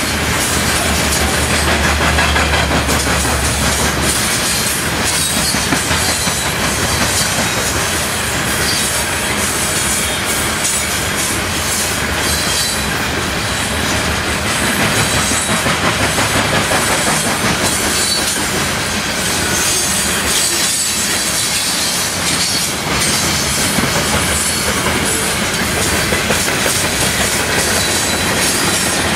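Loaded covered hopper cars of a heavy potash train rolling past close by: a loud, steady rush of steel wheels on rail with a fast, continuous clatter of wheels over the track.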